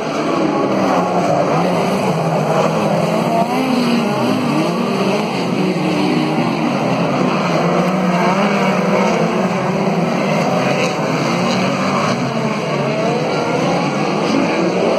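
Several small open-wheel race cars running laps on a dirt oval, their engines revving up and easing off in overlapping, wavering pitches.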